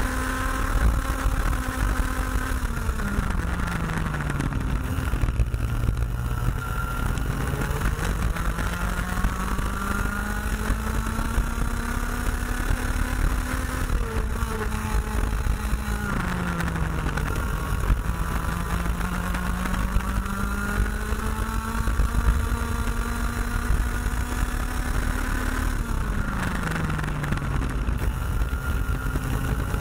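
IAME X30 125cc two-stroke kart engine heard from onboard at racing speed. Its pitch climbs slowly as the kart picks up speed along each straight, then drops sharply three times, about 3, 14 and 26 seconds in, as it slows for corners.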